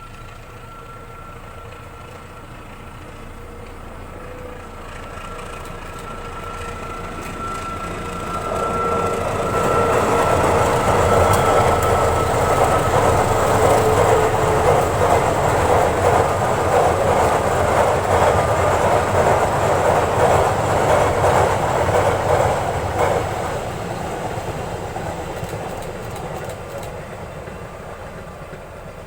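A train approaching, passing close by and moving away, its wheels clattering over the rail joints. A steady hum is heard during the approach, the passing is loudest for about fourteen seconds in the middle, and it fades away near the end.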